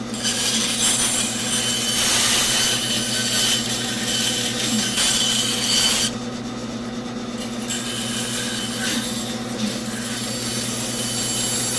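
Bandsaw running with a steady motor hum while its blade cuts through a thick wooden block. The cutting noise is loud for about the first six seconds, drops away sharply, then carries on more quietly as the corner cut is finished.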